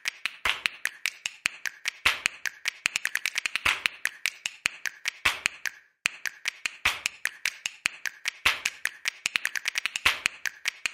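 A rapid, irregular run of sharp clicks and snaps, several a second, with a brief pause about six seconds in: an edited-in clicking sound effect.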